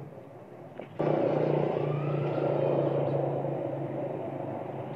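A motor vehicle engine running with a steady low hum, coming in abruptly about a second in.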